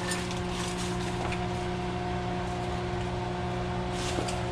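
Steady motor hum of a kitchen appliance, with a few faint crackles from cumin seeds toasting in hot oil in the pan.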